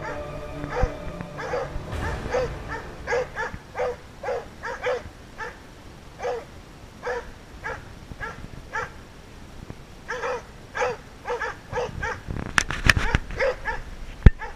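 A hunting dog barking over and over at a steady pace, about two barks a second with a short pause midway: the repeated bay bark of a dog holding game at bay. Loud knocks and rustling come near the end.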